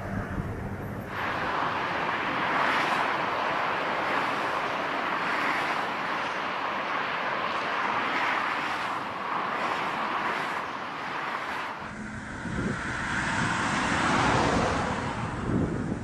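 Airliner engines during landings in strong crosswind, a loud steady rush with wind buffeting the microphone. About twelve seconds in the sound switches abruptly to another recording, gustier and rumbling.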